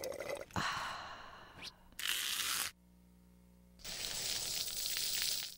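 Hissing sound effects: several bursts of hiss, a loud one about two seconds in and a longer one in the second half, each cutting off abruptly, with a low hum in the gap between them.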